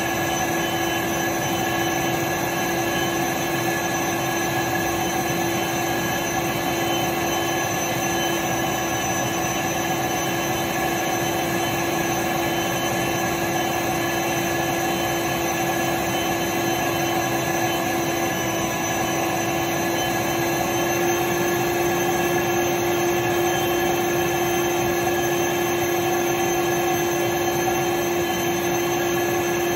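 Canister vacuum cleaner with a water basin running continuously: a steady whining hum over a rush of air that gets slightly louder about two-thirds of the way through.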